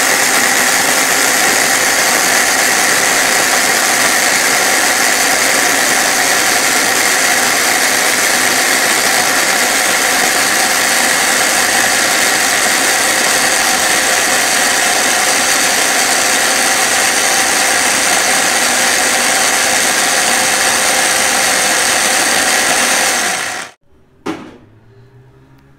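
Electric blender running steadily at full speed, blending a wet chutney mixture of herbs, tomato and yogurt, then cutting off abruptly near the end.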